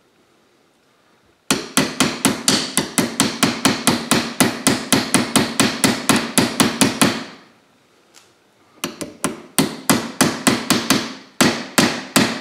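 Small gunsmith's hammer tapping rapidly on a rifle's front sight, about five light metallic taps a second, to drift the sight sideways onto its barrel base. There is one long run, a brief pause, then two shorter runs. The sight is not seating as it should.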